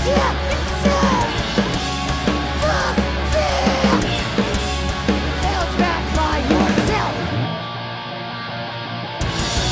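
Live hardcore punk band playing loud, with drums, bass, guitar and a yelled lead vocal. About seven seconds in the drums and low end drop out, leaving a held guitar chord, and the full band comes back in just before the end.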